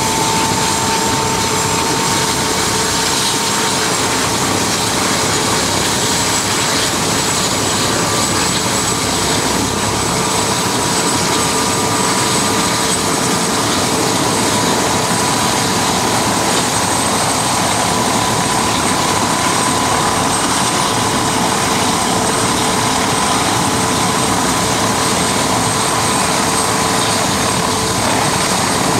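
Mil Mi-24P helicopter's twin Isotov TV3-117 turboshaft engines and main rotor running on the ground: a steady turbine whine over the rush of the turning rotor, the whine creeping slightly higher in pitch.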